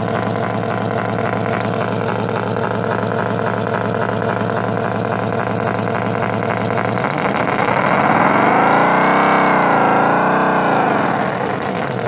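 Electronic engine-sound simulator for a battery forklift playing a synthetic idling engine note. About seven seconds in, the note revs up, wavers at the top, and falls back to idle near the end.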